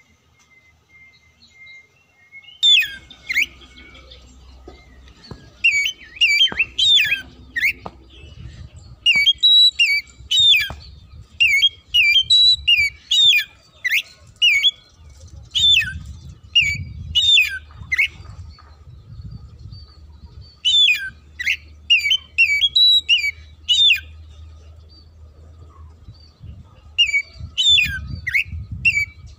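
Oriental magpie-robin (kacer) in full, aggressive song: loud, sharp whistled phrases of quick down-slurred notes in bursts, broken by a couple of short pauses.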